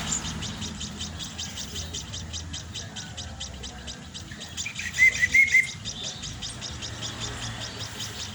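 Hand-fed baby birds cheeping to beg for food: a fast, steady run of high cheeps, with a short, louder burst of chirps about five seconds in.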